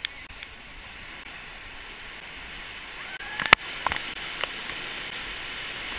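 Rushing white water churning around a round river-rapids raft, a steady noise that grows a little stronger, with one sharp knock about three and a half seconds in and a few lighter clicks after it.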